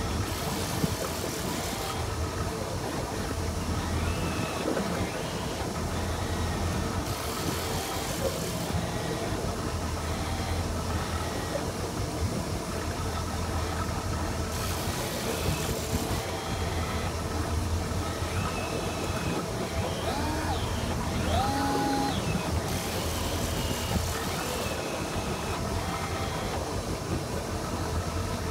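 Boat engine of a Tiara 2700 Open running steadily at trolling speed, a low hum, with a hissing rush that comes and goes about every seven or eight seconds.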